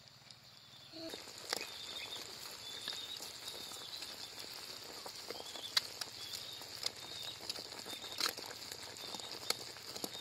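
Sugar syrup boiling in a metal pan as it turns to caramel: a steady bubbling fizz with scattered sharp pops and clicks. From partway through, a spoon stirs and scrapes through it.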